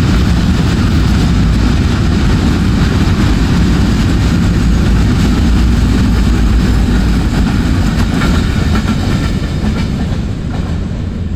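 A container freight train's flat wagons rolling past close by: a loud, steady rumble of wheels on rail with some clickety-clack, easing off a little near the end as the brake van goes by and the train draws away.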